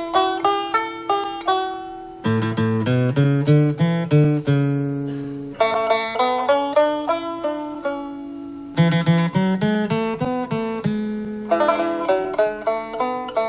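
Background music: an instrumental on plucked strings, quickly decaying picked notes over a bass line, in phrases that start afresh every few seconds.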